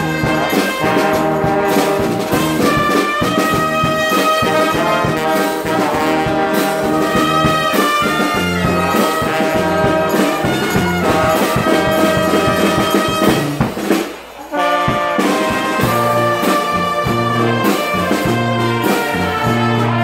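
A wind band plays a tune led by brass, over a bass line in even strokes. The music drops away briefly about 14 seconds in, then picks up again.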